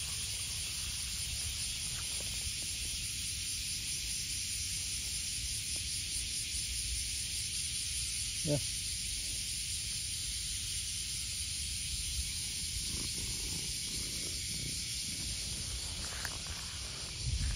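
Steady high-pitched hiss over a low rumble, with one short soft knock about eight and a half seconds in and some rustling just before the end.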